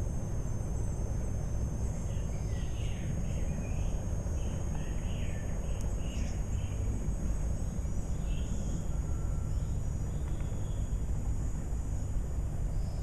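Outdoor ambience: a steady low rumble, with a small bird chirping in short repeated phrases from about two to seven seconds in and once more a little later.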